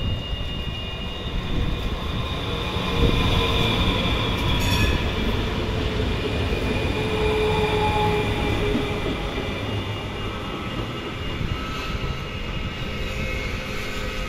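HTM GTL8 articulated tram rolling past close by, steel wheels running on the rails with a high, steady squeal; loudest about three to five seconds in.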